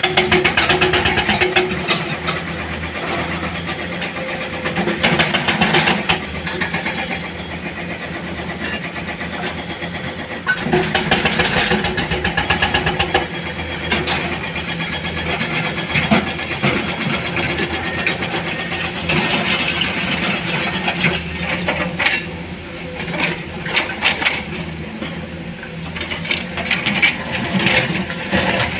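Heavy diesel machinery running as an excavator loads rock into a dump truck, the engines rising in load for a second or two several times.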